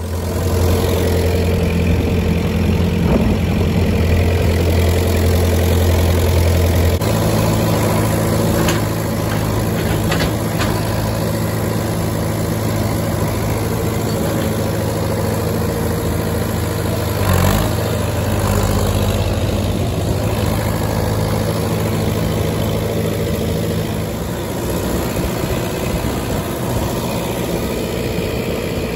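Farm tractor engine running steadily with a round baler, the engine note shifting about seven seconds in, with a single brief clunk about two-thirds of the way through.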